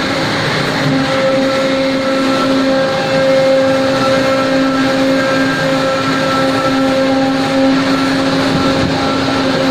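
Plastic injection moulding machines running: a loud, steady machine drone with a fixed hum of several tones over a constant rush of noise.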